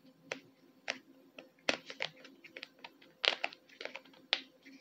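Small hard plastic toy pieces clicking and tapping as they are handled and fitted together: a Happy Meal Belle figure, her castle piece and its separate door. The clicks come irregularly, about a dozen, with a few sharper ones standing out.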